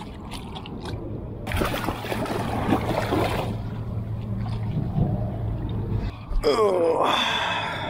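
Shallow water splashing and sloshing around a small boat's hull as it is slid off a trailer and pushed by hand, loudest for a couple of seconds after the start, over a low steady hum. A man grunts near the end.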